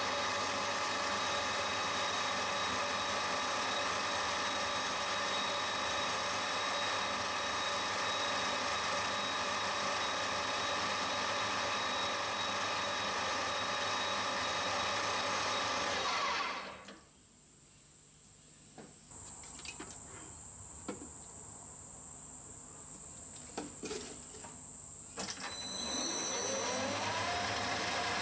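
Metal lathe running steadily with a gear whine while the spinning work is polished with emery cloth. About sixteen seconds in the lathe is switched off and falls quiet, leaving a few light clicks, and near the end it starts up again with a rising whine.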